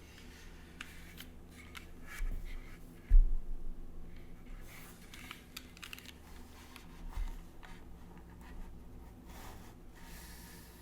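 Scattered keystrokes on a mechanical keyboard with Gateron Black KS3 linear switches, an aluminum plate, grommet mounting, no foam and GMK keycaps: irregular clacks with gaps between them. A low thump about three seconds in is the loudest sound.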